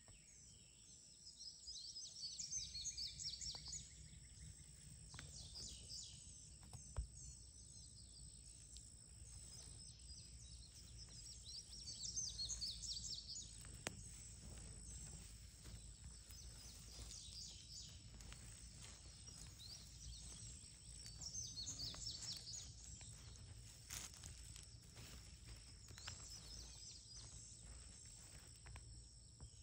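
Faint outdoor ambience of birds chirping in quick, scattered bursts, over a low steady rumble, with a few isolated clicks.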